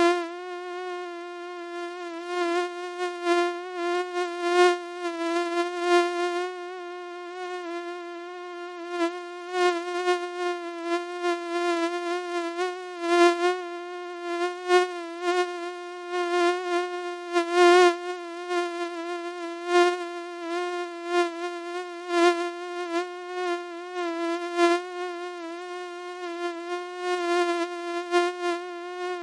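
Mosquito buzzing: a steady, high, whiny drone with a slightly wavering pitch that keeps swelling louder and dropping back irregularly.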